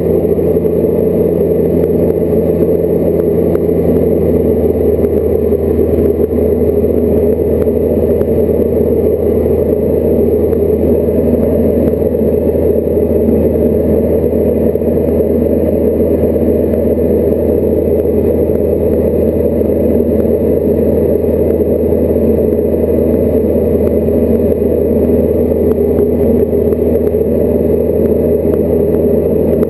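Diamond DA40 light aircraft's piston engine and propeller droning steadily in flight, heard from inside the cockpit.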